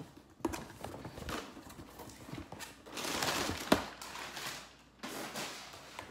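Cardboard shipping box being opened by hand: scattered knocks and taps on the cardboard as the flaps are handled. About three seconds in, crumpled brown kraft packing paper rustles as it is pulled out and tossed aside, ending in a sharp knock, the loudest sound here. A shorter rustle follows.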